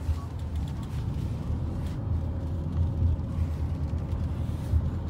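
Steady low rumble of a car driving on a wet road, heard inside the cabin, with a few faint ticks over it.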